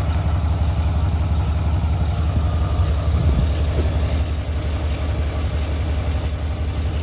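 A 2020 Chevy Silverado's engine idling steadily, its serpentine stretch belt squealing. The belt is worn and has a small tear, and the squeal comes from the belt rather than a pulley.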